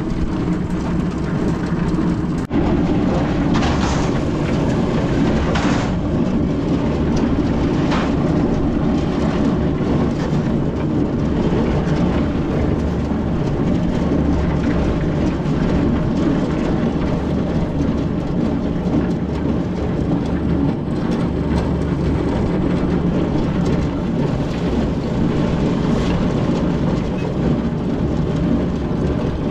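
Portable concrete mixer running steadily, its drum turning, with a low mechanical drone.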